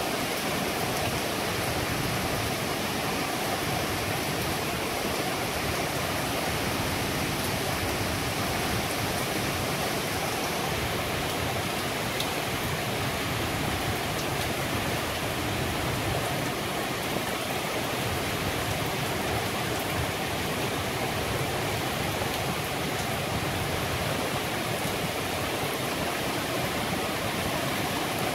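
Heavy tropical rain pouring down steadily onto paths, roofs and foliage.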